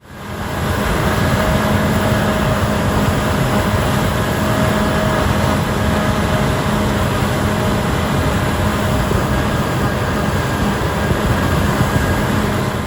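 Large harvest machine's diesel engine running steadily at constant speed, with a few fixed hum tones under broad mechanical noise. It fades in at the start.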